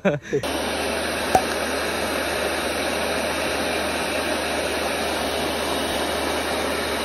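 Kärcher K2 electric pressure washer running: a steady motor hum under an even hiss, starting abruptly about half a second in, with a single click a little later.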